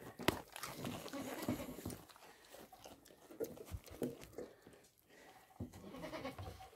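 Goats feeding right at the microphone: chewing and rustling in the feed, with scattered clicks and knocks, one sharp knock just after the start.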